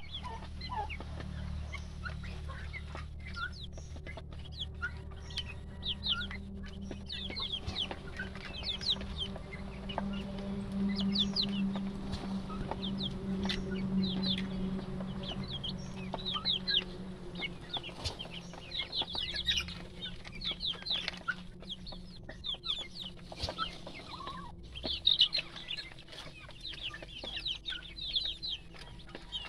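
A cage full of young native chicken chicks peeping, with many short, high, falling calls overlapping throughout. A low steady hum runs underneath and is strongest in the first half.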